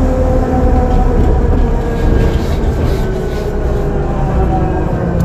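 Ikarus 412GT trolleybus's electric traction drive whining in several tones that slowly fall in pitch, over a steady low rumble of the vehicle running.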